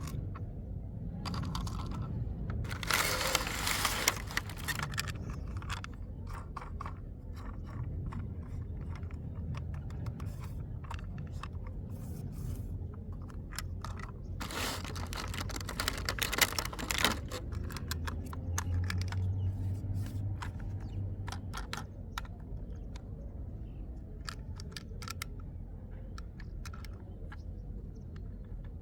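Hands handling a plastic toy train and its packaging: scattered clicks and scrapes of plastic parts, with two longer bursts of crinkling or tearing, about three seconds in and again around fifteen seconds in, over a low steady hum.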